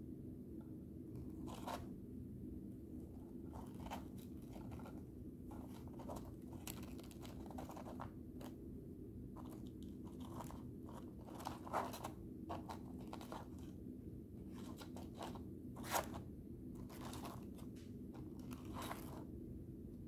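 Paper tea bag wrappers rustling and crinkling as fingers flip through them and pull them from a wooden tea box: scattered soft crackles and clicks, two a little louder near the middle and about three-quarters through, over a low steady hum.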